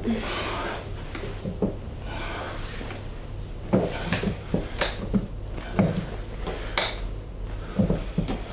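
Handling sounds of a chiropractic back stretch: soft rustling of body and treatment table, then about half a dozen short sharp clicks and knocks spread over the second half, the patient's joints or the table.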